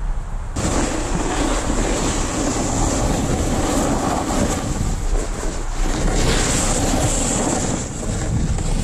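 Snowboard sliding and scraping over snow with wind buffeting the helmet camera's microphone, a loud steady rush while riding downhill. It starts suddenly about half a second in.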